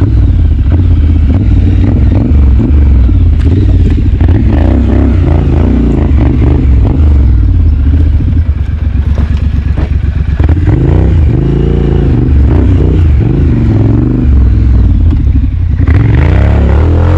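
Triumph Street Scrambler's 900 cc parallel-twin engine, fitted with a Shotgun slip-on exhaust and competition header, revving up and down as the bike is ridden off-road over sand, with rattling and clatter mixed in. Near the end the revs climb steeply.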